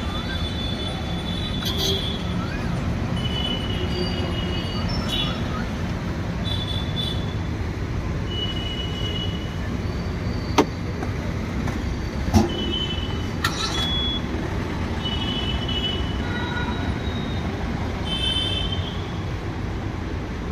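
Steady rumble of road traffic, with scattered short high chirps over it and two sharp knocks, about ten and twelve seconds in.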